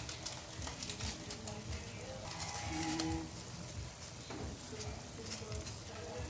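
Sautéed banana heart and pork sizzling in an aluminium wok, a steady fine crackle, with a few short pitched sounds in the background.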